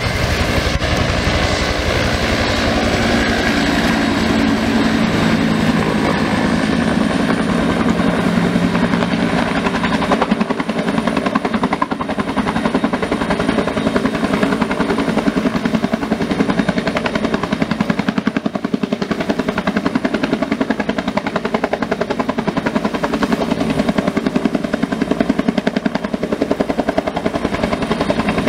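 Firefighting helicopter hovering low over the water, its main rotor beating in fast, even pulses under a thin, high turbine whine that rises slightly about seven seconds in. It is drawing water through a snorkel hose into its belly tank.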